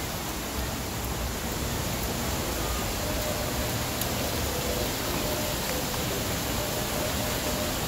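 Steady, even hiss of rain falling.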